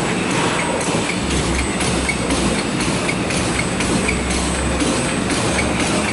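Two-line side-seal bag-making machine running, a steady mechanical clatter with a regular beat about twice a second.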